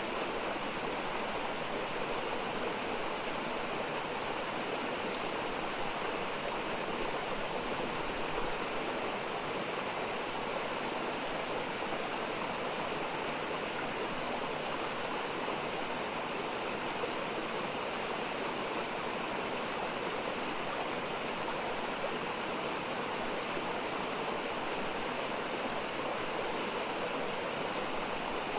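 Mountain valley stream running over rocks: a steady, even rush of water with no change in level.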